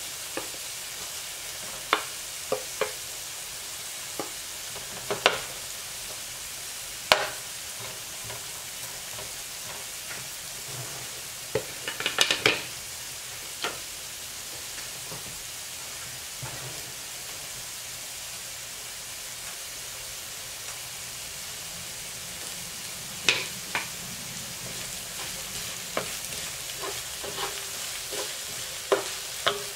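Sliced red onion and chopped garlic sizzling in hot oil in a nonstick frying pan, with scattered sharp pops from the spattering oil. Near the end a wooden spoon starts stirring, tapping and scraping against the pan.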